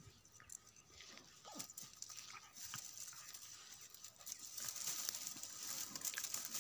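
Dogs play-fighting in dry grass: faint scuffling and rustling of the stalks, with a short falling dog whine about one and a half seconds in.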